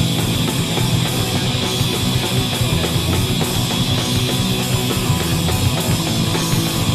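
Rock band playing live with distorted electric guitars, bass and a drum kit: a loud, steady instrumental passage with no singing.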